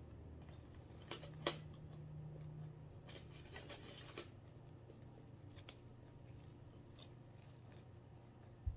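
Scattered small clicks and crisp rustles of food being handled and eaten at the table, with a low steady hum that stops about three seconds in.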